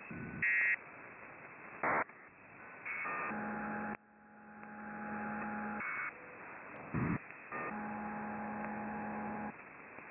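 Shortwave receiver in upper-sideband mode being tuned across the 8 MHz maritime band. Static hiss with a narrow, muffled sound is broken by several short, loud tone bursts and, twice, a steady pair of tones held about two seconds each, as the tuning passes over signals.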